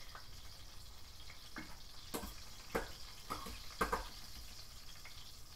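A tilapia fillet frying in hot oil in a pan: a steady sizzle with scattered pops, about five sharper crackles in the middle.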